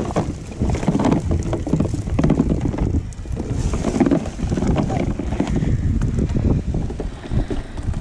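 Wind buffeting the microphone, with irregular taps and patter as a cast net full of wet anchovies is shaken out into a plastic cooler.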